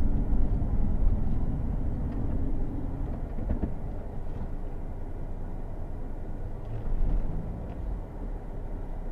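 Car engine and road noise heard from inside the cabin, a steady low rumble that eases off as the car slows to a stop, with a brief swell about seven seconds in.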